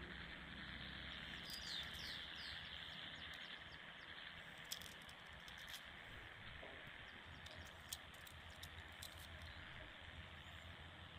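Faint steady outdoor background hiss, with a few light, sharp clicks as the grease-packed plastic gearbox housing of an RC truck is handled and picked clean with the fingers.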